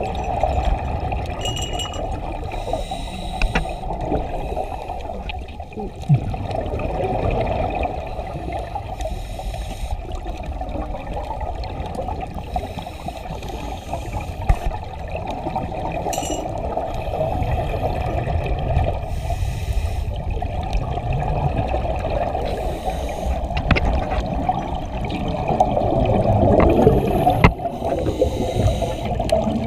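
Scuba divers' exhaled bubbles from their regulators gurgling and rising underwater: a muffled, steady wash that swells with each breath out and grows louder near the end, with a few brief knocks.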